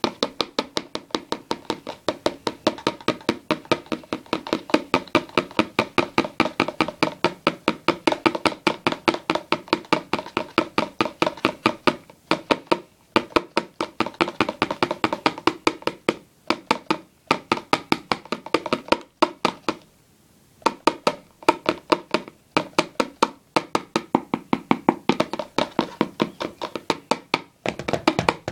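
Fruit fly containers tapped rapidly and steadily by hand, several sharp knocks a second with a few brief pauses, knocking the flies down so they don't crawl out while they are shaken from one container to another.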